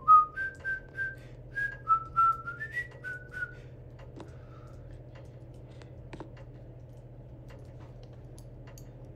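A person whistling a tune, a run of short notes stepping up and down, which stops about three and a half seconds in. Under it and after it, the steady low hum of a Casablanca Victorian ceiling fan's XLP motor running, with a few faint ticks.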